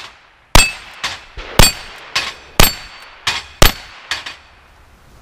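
Ruger Single-Six single-action .22 revolver firing four shots, about a second apart. Steel knock-down plates ring as they are hit, and a fainter crack follows about half a second after each shot.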